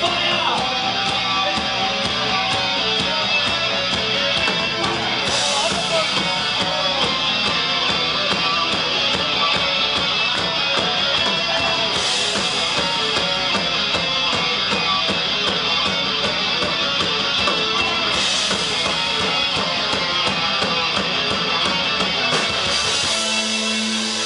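Heavy metal band playing live through a PA: electric guitars over a drum kit, with a cymbal crash roughly every six seconds. Near the end the band drops to a single held chord.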